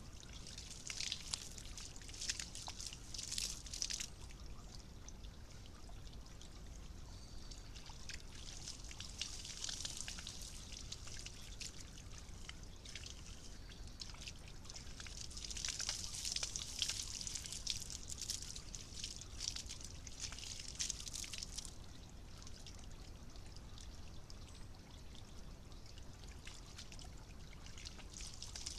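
A raccoon paddling and splashing in a garden rock fountain, over the steady pouring and trickling of the fountain's water. The splashing comes in bouts of quick wet slaps, heaviest in the first few seconds and again past the middle.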